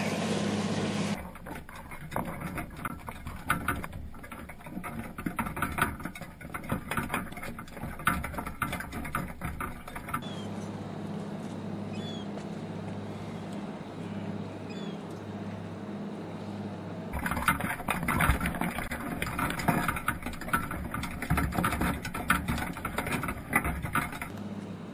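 Dense crackling and clicking heard underwater through a GoPro's waterproof housing inside a wire crab pot as crabs crawl over the trap. It comes in two long stretches, with a calmer stretch of steady low hum between them.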